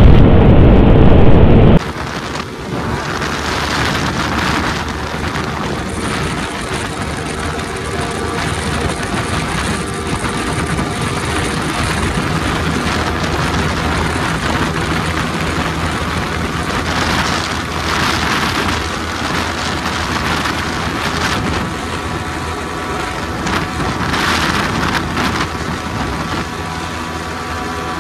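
Yamaha R15 motorcycle's engine held at high, steady revs during a top-speed run, with wind rushing over the microphone. A louder rush cuts off abruptly about two seconds in, and gusts of wind come and go.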